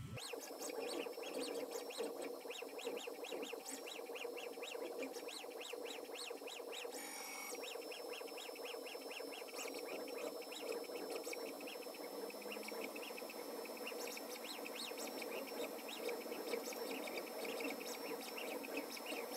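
Stepper motors of a hobby CNC machine chirping and whining in rapid short tones as they drive a diode laser module back and forth along engraved letter outlines, with a steady high thin tone underneath.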